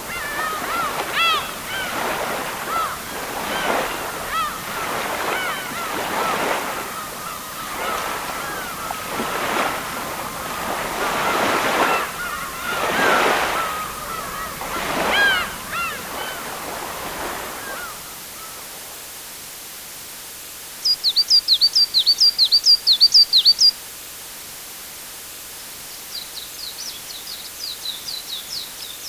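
Water washing in waves while waterbirds call over it again and again. The wash stops about two-thirds of the way through, and a small songbird then sings a quick run of high chirps, followed by a second, fainter run near the end.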